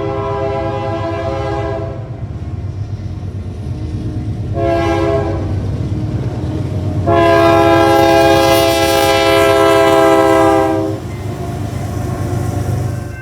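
Nathan K3LA/K3HA 'Narrow Font' three-chime locomotive air horn sounding a chord over the low rumble of the train. A blast cuts off about two seconds in, a short toot follows a few seconds later, then a long, loud blast lasts about four seconds and stops near the end.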